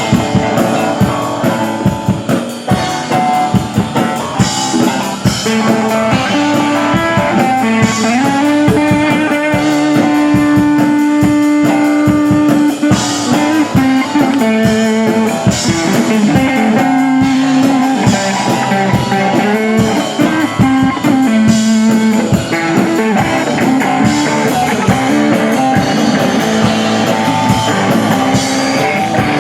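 Rock music: an electric guitar plays a lead line over a drum kit, with one note held for several seconds about a third of the way in.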